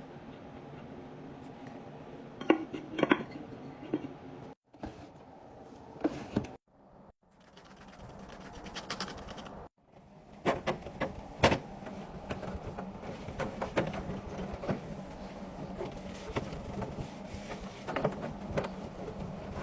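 Packaged food and drink containers being handled and set into a fridge: scattered clicks, taps and knocks over a low room hum, broken by a few abrupt silent gaps.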